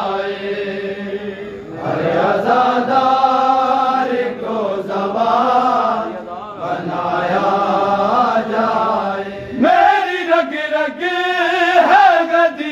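Men's voices chanting a Shia noha (mourning lament) together in long, held sung lines. About ten seconds in, a louder line with quicker pitch turns begins.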